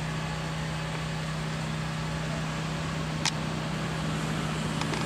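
Steady low mechanical hum over a constant hiss, with a single sharp click about three seconds in.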